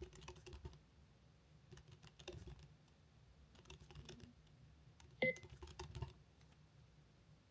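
Fast touch-typing on a computer keyboard, in four short rapid bursts of keystrokes with brief pauses between them, one word per burst. A sharp, louder click with a short ring comes a little past five seconds in, and the typing stops about six seconds in.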